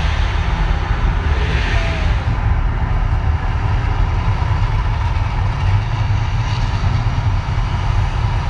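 A loud, deep, steady rumble, with a brief hissing swell a little over a second in.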